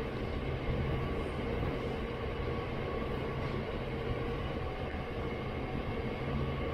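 Freight train rolling slowly past, its loaded wagons making a steady rumble on the rails with a faint steady hum.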